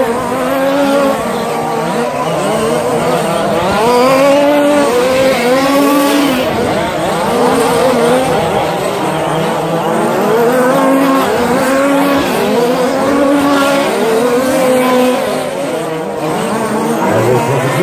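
Several radio-controlled short course trucks racing, their motors rising and falling in pitch over and over as they accelerate and brake around the track, overlapping one another.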